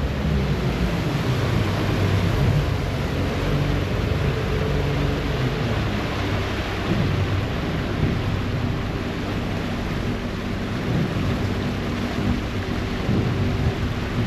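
A ferry's diesel engines running steadily under way: a low drone with a few held hum tones, over the hiss and rush of the churning propeller wash.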